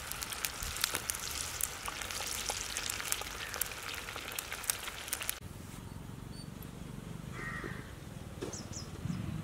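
Masala-coated mushroom pieces deep-frying in hot oil in a clay pot: dense sizzling with many crackling pops. About five seconds in it cuts off abruptly to quieter outdoor ambience with a few brief bird calls.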